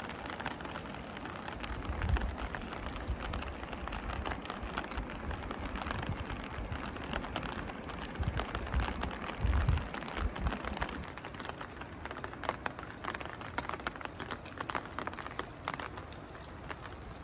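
Steady rain, with many drops ticking on hard surfaces close by. A low rumble comes twice, about two seconds in and again near ten seconds.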